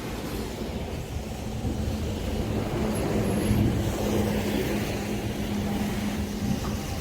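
Road traffic: a motor vehicle running close by with a steady low engine hum and rumble, growing louder about three to four seconds in.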